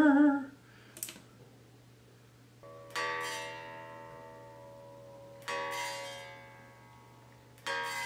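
2019 PRS Silver Sky electric guitar being tuned: single strings plucked three times, a couple of seconds apart, each note left to ring and fade away. A steady low hum sits underneath.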